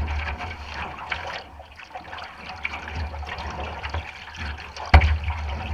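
Water splashing and lapping around a canoe moving down a river, with a low rumble throughout and one sharp knock near the end.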